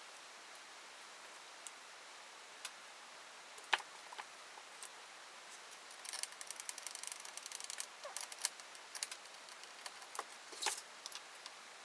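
Scattered light clicks and taps of small chainsaw parts and hand tools being handled on a workbench, with a quick run of rapid ticking about six seconds in.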